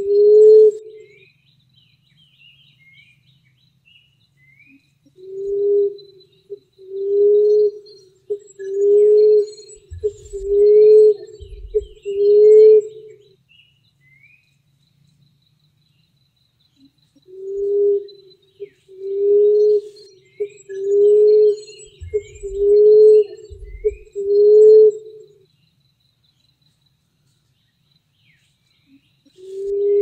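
Emerald dove cooing: low, soft, moaning coos repeated roughly every second and a half in two runs of about five, with a pause of several seconds between runs. Small birds chirp faintly in the background.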